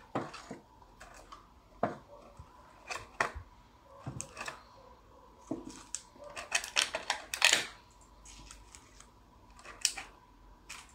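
Light clicks and knocks of small tea-set pieces and paint pots being lifted from a plastic packing tray and set down on a table, spaced out every second or so, with a quick cluster of clatter about seven seconds in.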